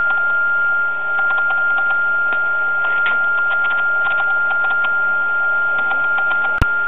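A steady high-pitched whine runs throughout, under faint light clicks from the metal touch-off plate and alligator clip being handled under a CNC router bit. A single sharp click comes near the end.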